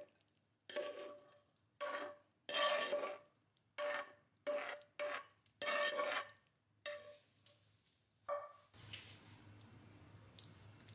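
Scrambled eggs being scraped out of a frying pan onto a plate in about ten short scraping strokes, each with a faint ring from the pan. Near the end the scraping stops and only a quiet room hum remains.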